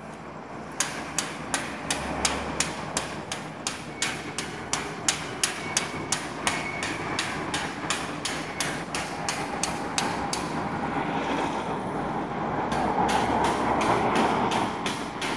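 Late-night construction work: rapid, evenly spaced hammer knocks, about three a second. They pause around the two-thirds mark while a swell of steady machine noise rises, then start again near the end.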